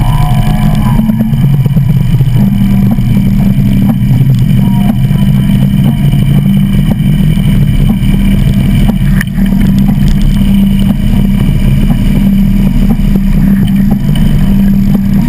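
Harley-Davidson V-twin motorcycle engine running steadily close to the microphone, with its pitch stepping up slightly about two seconds in.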